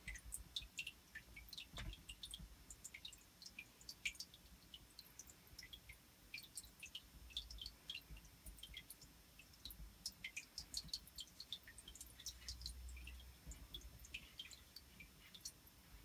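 Faint, irregular ticking and crackling, several small ticks a second, over a low rumble: a hand stroking a quince monitor lizard's scaly head and neck.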